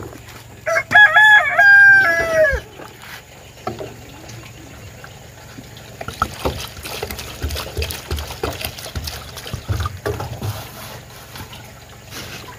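A rooster crows once near the start, one loud call of about two seconds. Later, water is poured from a plastic jug into a plastic bucket of dried cassava pieces, splashing and trickling, with the clicks of hands moving the pieces.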